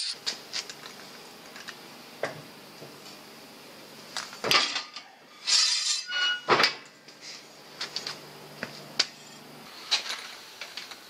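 Sheet-steel clanks, scrapes and knocks as a small steel piece is handled and set into a manual sheet-metal folding brake, with a few louder clatters in the middle.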